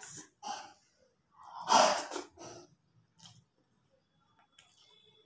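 Close-miked eating mouth sounds as a handful of rice and curry is taken: a loud, breathy mouth noise about two seconds in, then soft chewing and lip-smacking clicks.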